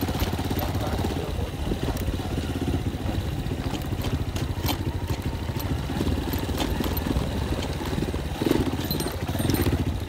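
Motorcycle engine running steadily while riding a rough dirt and gravel track, with scattered clicks and rattles as the bike jolts over stones.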